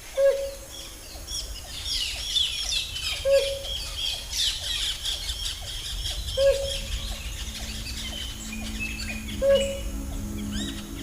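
Many birds chirping and whistling together, with a short, louder, lower call repeating about every three seconds. Low steady notes come in past the middle.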